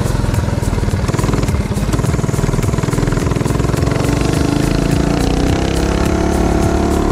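Mini bike's small single-cylinder engine running under way, its pitch climbing in the second half as the throttle opens.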